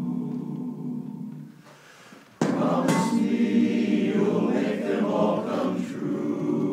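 Men's barbershop chorus singing a cappella: a held chord fades away about a second and a half in, a brief pause follows, then the full chorus comes back in suddenly and loud.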